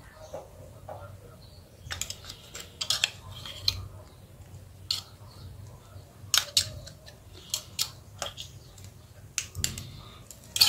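Plastic snap clips of an Asus Z008D smartphone's inner frame clicking and snapping loose as a metal pry tool works around the frame, with scrapes of metal on plastic. The clicks come irregularly, singly and in short clusters.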